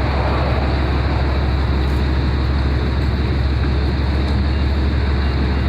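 An engine running steadily with a constant low rumble.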